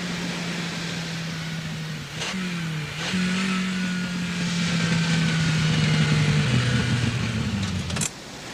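Ferrari 308's V8 engine running as the car drives along, its pitch dipping and climbing again about two seconds in, then falling as the car slows. The engine sound stops abruptly with a click near the end.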